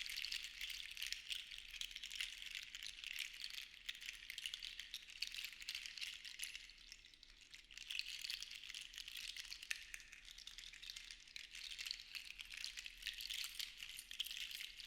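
Seashells rattling against each other in a dense, continuous clatter of small clicks, easing off for a moment about seven seconds in.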